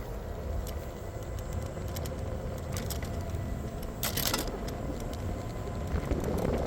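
Street vehicle noise: a steady low rumble with a few light clicks and a brief rattle about four seconds in.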